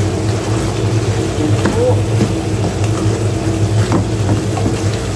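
A wooden spatula stirring and scraping through thick sweet-and-sour sauce simmering in a frying pan, with a few light clicks against the pan, over a steady low hum.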